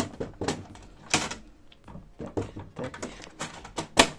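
Sharp plastic clicks and knocks from an HP DeskJet 2720 inkjet printer as an HP 305 ink cartridge is pushed and snapped into its carriage, with handling noise between them. The loudest click comes near the end.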